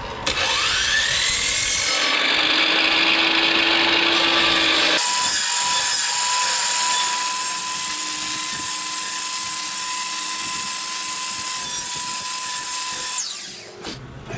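Electric power tool spinning up and running as it cuts a notch in a wooden post, its load shifting as it works. The motor spins down near the end.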